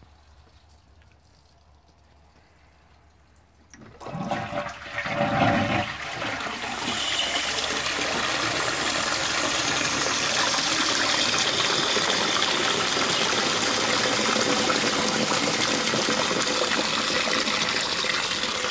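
A 1970s Armitage Shanks Magnia low-level cistern is flushed. About four seconds in, the siphon sets off with a couple of gushing surges. Then the cistern refills with a steady rush of water spraying in from its brass Part 2 float valve. The flush doesn't drain the whole cistern, which the owner puts down to a piece of old siphon diaphragm stuck inside the inlet.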